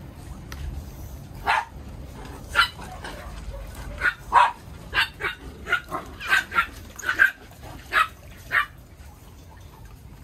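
A dog barking, about a dozen short, sharp barks starting about a second and a half in. They come quickest in the middle and stop shortly before the end.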